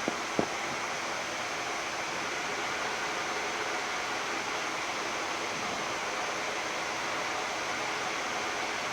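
Steady hiss of a Boeing 787-10 flight deck during taxi on one engine: cabin air-conditioning airflow and the running engine. A single short click comes about half a second in.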